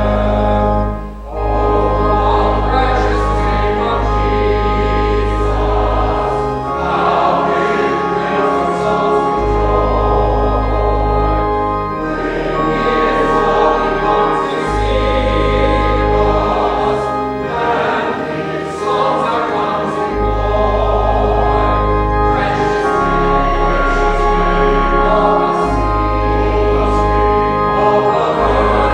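A church congregation singing a hymn together, with accompaniment holding long bass notes that change every few seconds.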